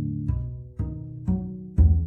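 Background music of plucked low string notes, about two a second, each note striking sharply and fading.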